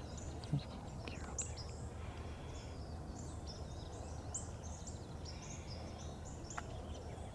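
Many short, high chirps from small birds, thickest through the middle, over a steady low rumble of outdoor background noise. A soft low thump about half a second in.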